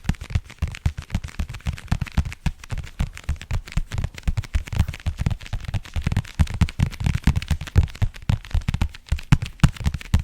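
Fast, close-miked fingertip tapping on an object for ASMR, many taps a second in quick irregular runs, each tap with a deep thump.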